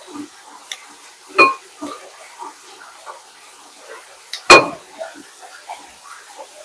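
Kitchen clatter: two loud ringing clanks of metal cookware, about a second and a half in and again near four and a half seconds, with light clicks and taps between.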